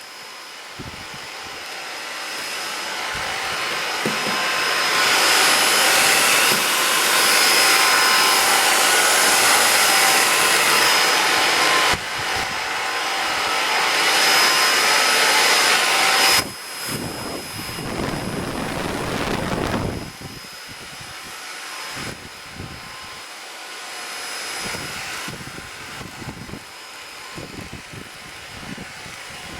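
Xiaomi cordless vacuum cleaner running: a steady airflow hiss with a thin high motor whine. It builds in loudness over the first few seconds and stays loud, dipping briefly about 12 seconds in. About 16 seconds in it drops sharply, and it runs quieter and more unevenly from about 20 seconds on.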